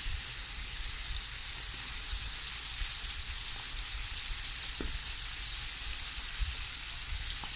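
Flour-coated chicken wings deep-frying in a pot of hot oil: a steady sizzle.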